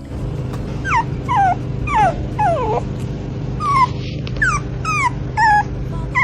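A dog, likely a small puppy, whimpering in a string of about nine short, high cries that each fall in pitch, over a steady low hum.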